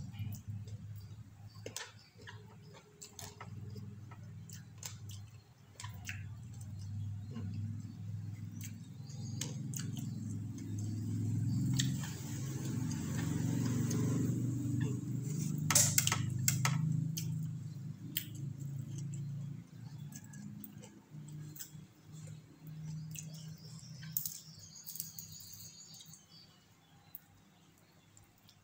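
A person eating by hand close to the microphone: chewing with frequent small clicks and smacks of the mouth. The eating gets louder and noisier for a few seconds around the middle.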